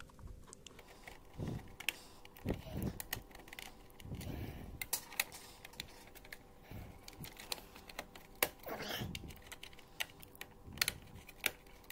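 Irregular small plastic clicks and dull knocks from handling the dishwasher's control-panel parts as the wire connectors are pushed back onto their sockets.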